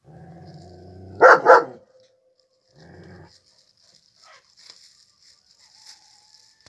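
A dog growling low, breaking into two loud barks in quick succession about a second in, then another short growl around three seconds, during play with another dog.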